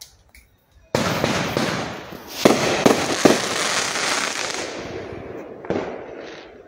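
Aerial fireworks going off: a sudden loud burst about a second in, then a dense crackling shower with three sharp bangs in quick succession, fading away, and another short burst near the end.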